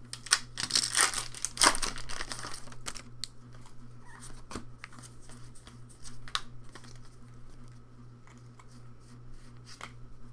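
Foil booster pack wrapper being torn open and crinkled, densest over the first three seconds, then fainter scattered rustles and ticks as the cards are handled.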